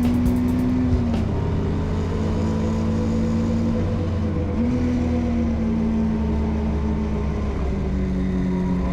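A car engine running, its pitch dropping about a second in, climbing back near five seconds and dropping again near eight seconds, over a steady low rumble.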